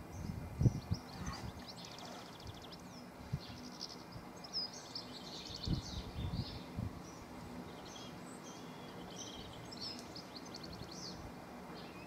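Songbirds singing in the background, with repeated phrases and rapid trills. A few dull, irregular knocks come from a male great spotted woodpecker chiselling wood inside its nest hole.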